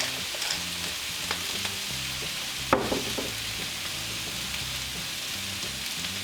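Onions, broccoli and carrots sizzling steadily in hot oil in a frying pan, with one sharp knock a little before halfway through.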